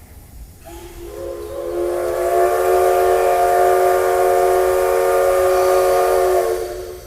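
Steam whistle of the C62-class steam locomotive C62 2, one long blast of about six seconds sounding several notes together as a chord. It swells over the first couple of seconds, holds steady, then cuts off sharply.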